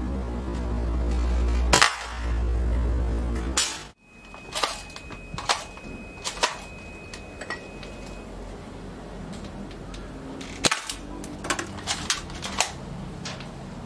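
Background music under a slowed-down shot, then a spring-powered airsoft rifle (a custom SVT-40 built on a Crosman M47) firing single shots, each a sharp snap. Smaller clicks come between the shots, and the snaps and clicks bunch up more closely near the end.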